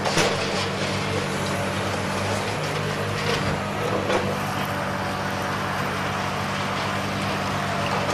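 Heavy machinery's engine running steadily on a demolition site, with a few faint knocks from the work.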